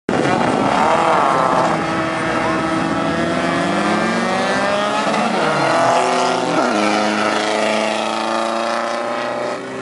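Several off-road race cars accelerating hard on a dirt track, engines revving high with notes rising through the gears. Several notes drop in pitch between about five and seven seconds in as the cars go past.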